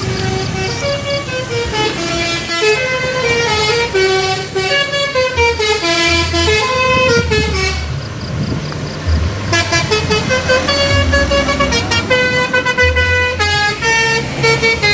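Telolet horns on an odong-odong mini tourist train playing a tune, a quick run of pitched notes stepping up and down, with short pauses around 8 s and 9 s.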